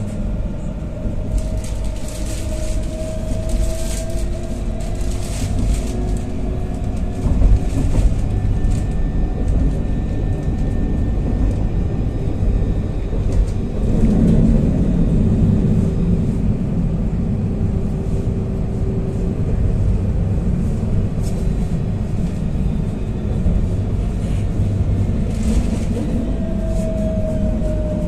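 Alstom Citadis 302 tram running on its rails, heard from inside the passenger cabin: a steady low rumble of wheels on track under a traction-motor whine. The whine rises in pitch over the first few seconds as the tram picks up speed and falls again near the end as it slows. Scattered clicks and rattles sound over it.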